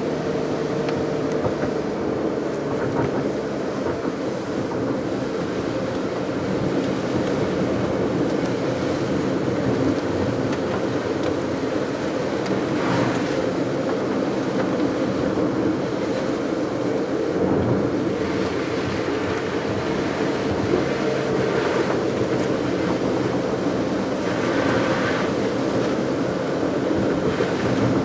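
Car driving on a wet road: the engine runs steadily under tyre and road noise. A few brief swells of hiss come about halfway through and again near the end.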